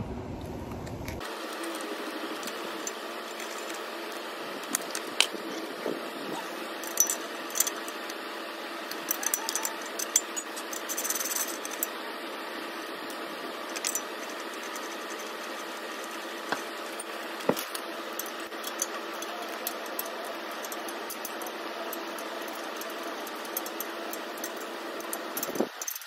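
Fast-forwarded sound of hand tools at work as a pit bike's stock exhaust and plastics are removed: many quick metallic clicks and rattles over a steady hiss.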